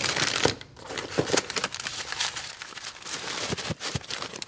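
Packaging crinkling and rustling while parts are handled and unwrapped, with scattered irregular clicks and crackles.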